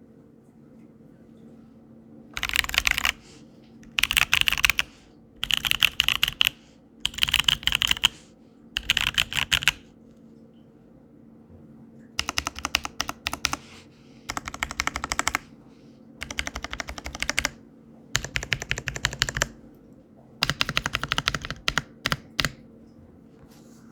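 Custom mechanical keyboard typed on in bursts of about a second each with short pauses between, and a longer pause near the middle: lubed, film-gasketed C3 Kiwi tactile switches on a POM plate in an acrylic case.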